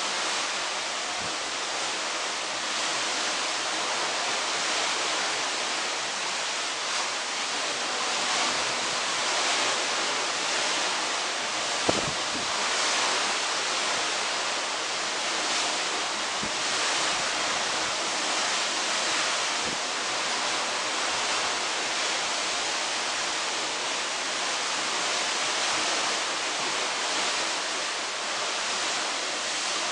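Steady rush of wind and sea heard from a moving cruise ship's balcony, an even hiss without pauses. A single brief knock about twelve seconds in.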